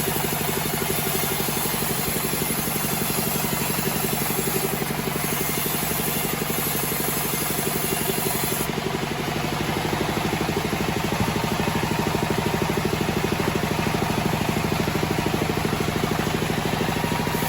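Engine driving a homemade band sawmill, running steadily with a fast, even pulse.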